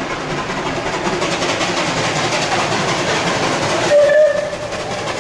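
Bulleid West Country class steam locomotive No. 34046 approaching under steam with its train, a steady working rumble and rail noise slowly growing louder, and a short whistle blast about four seconds in.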